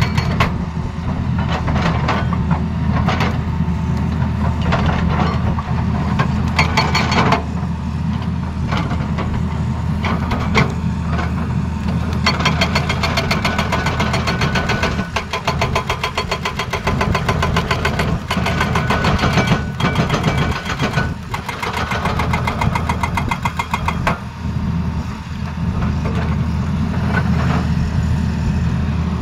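Tata Hitachi Zaxis excavator's diesel engine running steadily while its hydraulic breaker hammers rock in spells of rapid, evenly spaced blows.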